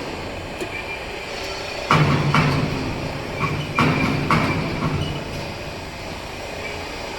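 Heavy machinery running with a steady rumble and low hum, broken by sharp metal clanks about two seconds in and again about four seconds in.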